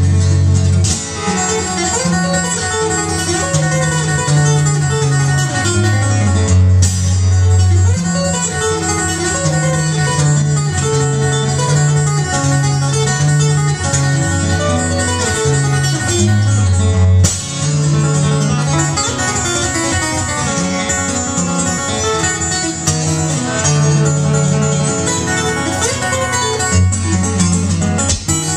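Solo fingerstyle acoustic guitar playing an upbeat instrumental, with alternating bass notes under a busy melody. Twice a sharp percussive hit cuts through the playing.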